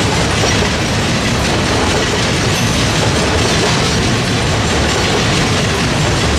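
Freight train cars rolling past, steel wheels running on the rails with a loud, steady rush of noise.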